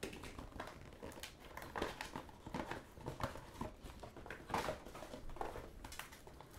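A wrapped trading card pack being handled, its wrapper giving soft, irregular crinkles and rustles.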